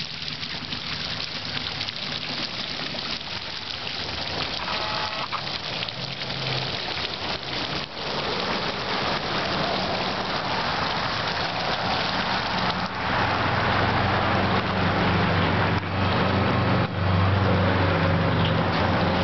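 Small fountain jet spraying up and falling back into a shallow basin, a steady splashing hiss like rain. In the second half a road vehicle's engine hum joins in and grows louder.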